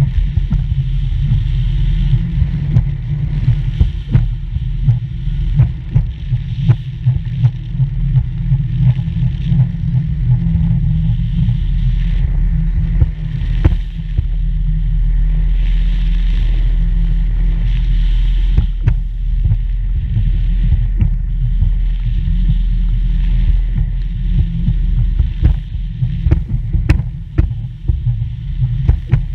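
Wind buffeting a camera microphone during a parasail flight: a loud, steady low rumble broken by many sharp gusts and knocks.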